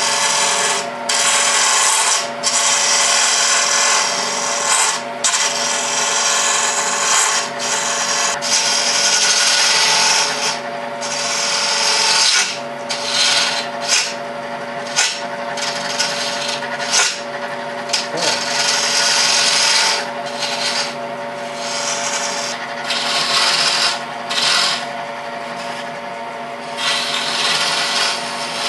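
Wood lathe running with a steady motor hum while a hand-held turning tool cuts the spinning wooden column. The cut is a loud hiss that comes and goes as the tool is pressed to the wood and lifted, in long passes and short quick touches while beads and coves are shaped.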